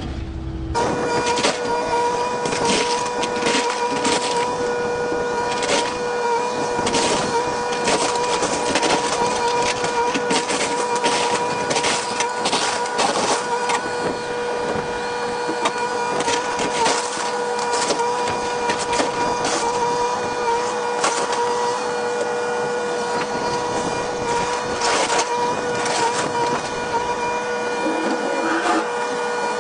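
Excavator at work on a house demolition: a steady machine whine with frequent sharp cracks and crunches of breaking material.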